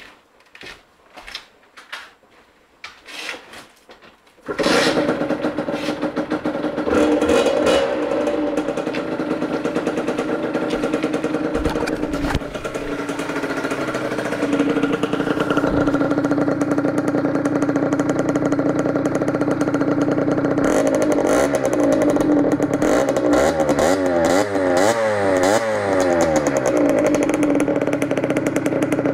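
A few clicks and knocks, then a Yamaha DT50's 50cc two-stroke engine, fitted with a Tecnigas E-Nox aftermarket exhaust, catches about four seconds in and runs steadily. Near the end the throttle is blipped in a series of quick revs up and down.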